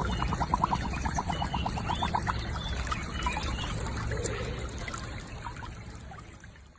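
Liquid pouring and trickling, with a quick run of short gurgles in the first couple of seconds, fading out near the end.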